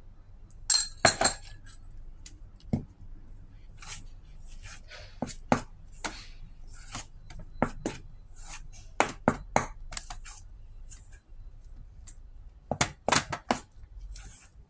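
Flour and butter being mixed by hand in a stainless steel mixing bowl: irregular clinks and knocks against the metal bowl, with short dry swishes of the flour being stirred. The loudest clusters of knocks come about a second in and near the end.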